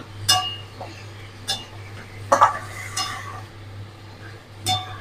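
Metal spatula scraping and clinking against a metal kadai as raw marinated chicken pieces are stirred, with about five sharp clinks at uneven intervals.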